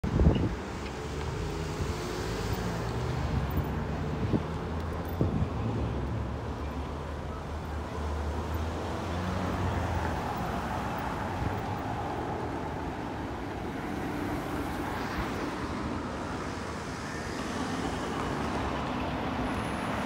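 Road traffic: cars driving past on the street over a steady low hum, with a few short thumps in the first seconds.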